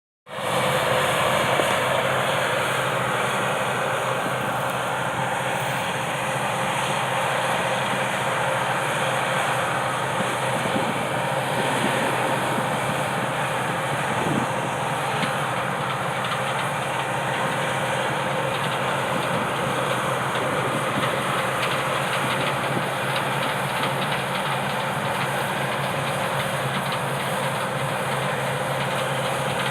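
Combine harvester running steadily while harvesting wheat: a continuous engine hum under the dense whirring rush of the threshing machinery, holding level throughout.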